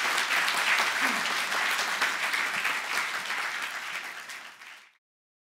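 Conference audience applauding at the end of a talk, many hands clapping steadily, then fading and cutting off about five seconds in.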